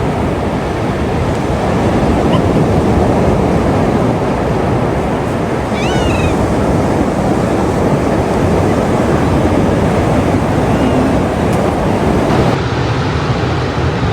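Steady rush of ocean surf and wind, with a few short mewing gull calls, the clearest about six seconds in. Near the end the sound cuts abruptly to a quieter, steady low hum.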